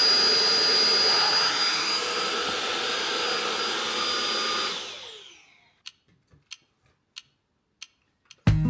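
Vacuum cleaner running steadily with a thin high whine, then switched off about five seconds in, its motor winding down with a falling pitch. A handful of short, sharp clicks follow.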